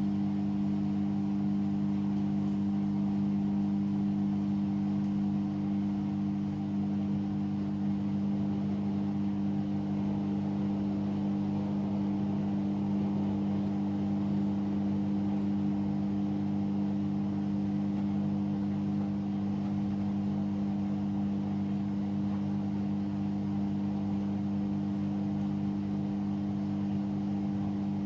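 Hoover washing machine on its final spin, in sudslock (the machine has detected too many suds). The motor and drum give a steady hum at one unchanging pitch.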